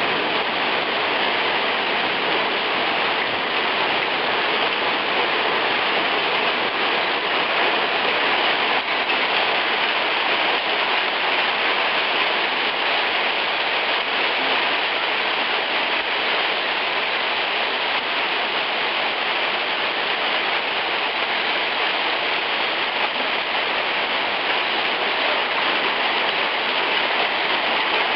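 Heavy hail pelting down on stone paving, a dense, steady patter with no let-up.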